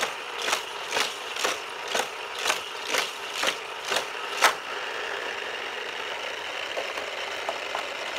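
Hot Wheels Criss Cross Crash booster running, its motor whirring steadily while a die-cast car zips through its spinning wheels about twice a second. About four and a half seconds in comes one louder strike, then the cars stop coming and the motor whirs on alone as the voltage is turned up to nearly 10 volts.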